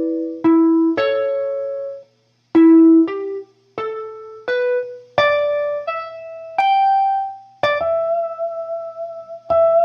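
Clean-toned guitar playing a slow single-note blues lick. A few plucked notes, a short gap, then a climb up through single notes, ending on a long held note with vibrato.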